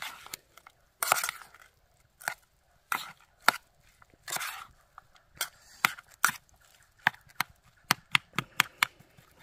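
A utensil knocking and scraping in a vessel as a mashed potato mixture is stirred and pressed. Irregular sharp knocks and short scrapes give way in the second half to a quicker run of taps, about three or four a second.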